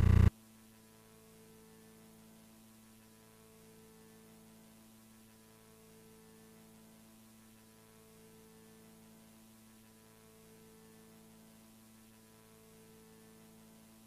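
A loud burst of sound cuts off suddenly just after the start. Then near silence with a faint, steady electrical hum.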